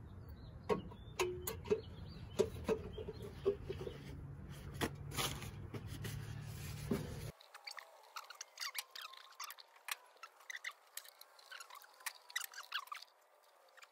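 Scattered light clicks and taps of valve cover bolts and metal parts being handled as the bolts are started by hand on a Ford 300 straight-six. A low background hum drops out abruptly about halfway through.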